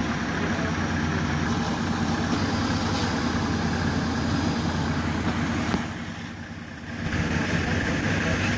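Engines of off-road prototype trucks running steadily at low revs. About six seconds in there is a sharp click, the sound drops for about a second, then it comes back.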